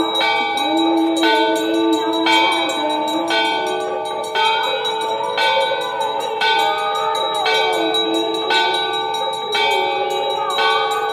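Hindu temple bells ringing for the evening aarti, struck about once a second, each stroke's ring running on into the next.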